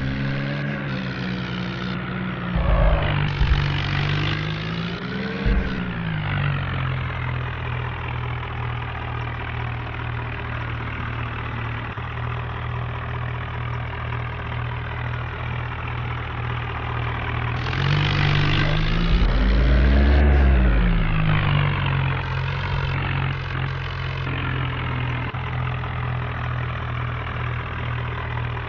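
Vehicle engine idling steadily, revved up and back down twice: briefly a few seconds in, and again, louder, past the middle.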